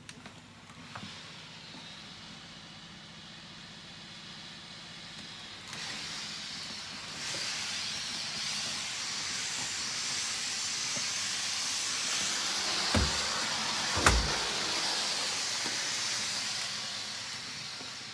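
Shark corded vacuum cleaner running with a steady rushing hiss of suction air, growing louder about six and seven seconds in, with two knocks a second apart near the end.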